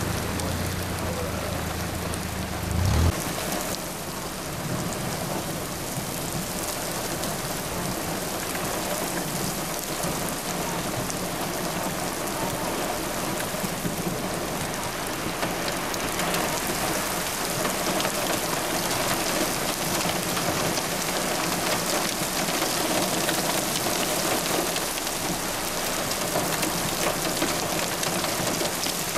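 Heavy rain pouring steadily in a dense, even hiss. A low rumble underlies the first three seconds and cuts off suddenly with a brief loud jump about three seconds in.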